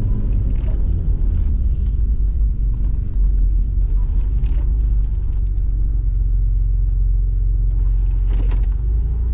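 Engine of an off-road 4x4 running as it drives slowly, heard from inside the cab as a loud, steady low rumble.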